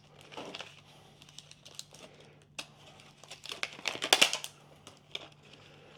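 Crinkling and rustling of packaging with scattered small clicks as a set of paring knives is handled; the loudest rustle comes about four seconds in.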